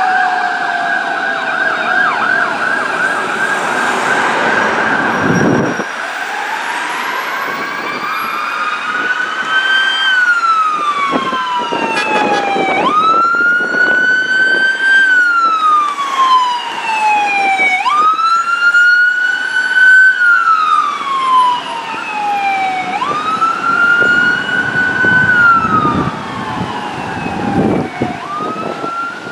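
Electronic siren on a Ford F-250 battalion chief's pickup sounding a wail, each cycle rising quickly and falling slowly over about five seconds, loud as it passes. In the first few seconds a departing fire truck's faster warbling siren fades away.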